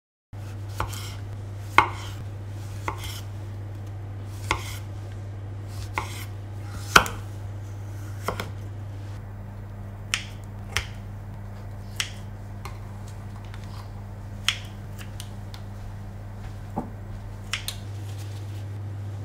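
Food-prep cutting sounds: sharp knocks and clicks of a blade on a wooden cutting board at irregular intervals, roughly one a second, and kitchen scissors snipping strips of bacon. A steady low hum lies underneath.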